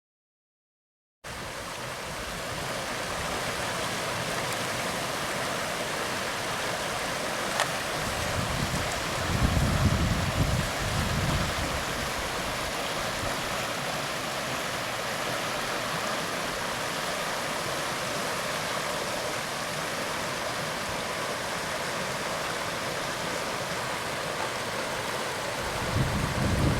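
Steady, even outdoor rushing noise, like running water or wind in the open, starting about a second in, with brief low rumbles about nine seconds in and again near the end.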